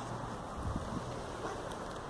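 Steady wind rumble on a phone microphone, with a few low bumps just before the middle as the phone is swung around.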